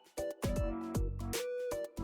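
Background electronic music with a regular drum beat, held synth notes and falling bass slides.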